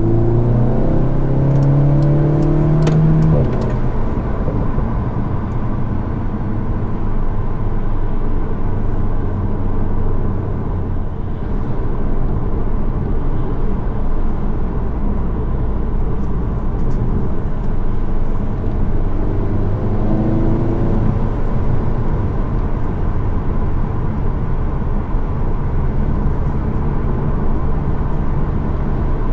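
Seat Leon Cupra 300's 2.0-litre turbocharged four-cylinder and stock exhaust heard from inside the cabin while driving. The engine note climbs in pitch under acceleration for the first three seconds or so and then drops off abruptly. It settles into a steady low drone, with another short rise in revs about twenty seconds in.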